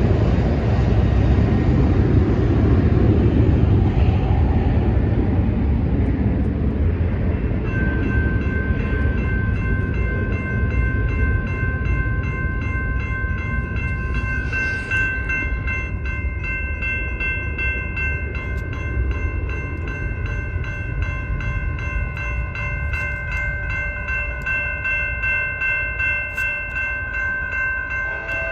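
Railroad crossing bells start ringing about a quarter of the way in and keep ringing steadily, a fast string of strokes that sound as the crossing signals activate. A low rumble fills the opening seconds.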